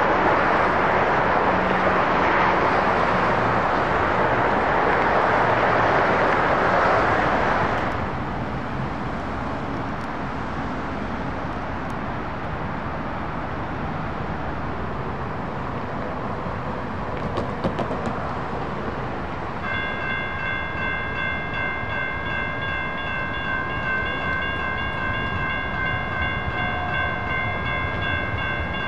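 A Siemens-Duewag U2A light-rail train passing the crossing with a loud rushing noise that cuts off suddenly about eight seconds in. From about twenty seconds in, a light-rail train horn sounds one long steady chord.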